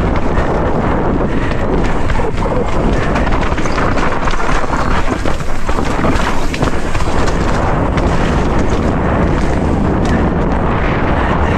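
Wind rushing over the camera microphone and mountain bike tyres rolling over loose dirt and rocks on a fast singletrack descent. Frequent clicks and knocks run through it as the bike rattles over stones.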